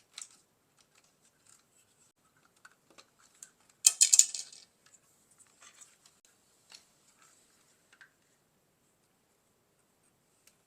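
Light clicks and scraping of a wire and the plastic parts of a Roomba i7 robot vacuum being handled as the wire is pushed back through a hole in the chassis, with a brief burst of rapid sharp clicks and scratching about four seconds in.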